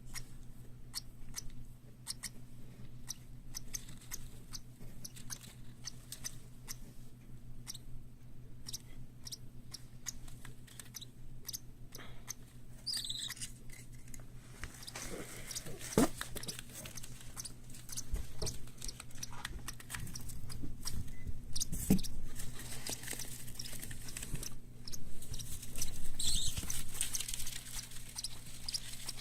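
Parrot chicks pecking and nibbling: a steady run of many small clicks and crunches. A few short high chirps come in about halfway and again near the end.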